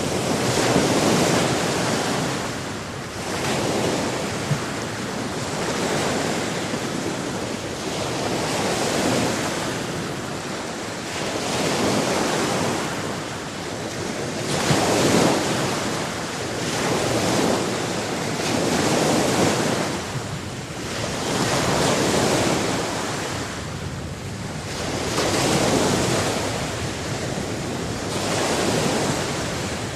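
Sea waves breaking and washing on a shore, the surf swelling and fading every two to four seconds.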